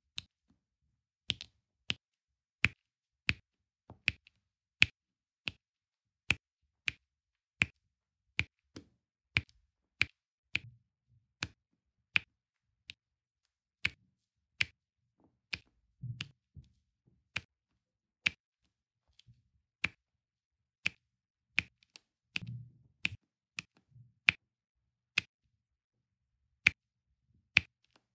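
Sharp clicks of a diamond-painting pen's metal multi-placer tip tapping round resin drills onto the canvas, about one and a half a second in an even working rhythm. Twice, at about 16 and 22 seconds, soft low thuds come in under the clicks.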